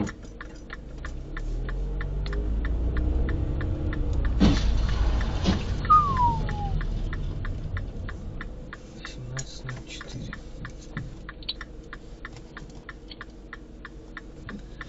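Inside a car: the turn-signal relay ticking steadily, about three ticks a second, over the low drone of the engine at a standstill. A short falling squeal sounds about six seconds in.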